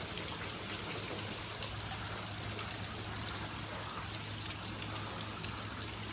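Heavy rain falling steadily, an even hiss of rain with faint patter of drops, over a steady low hum.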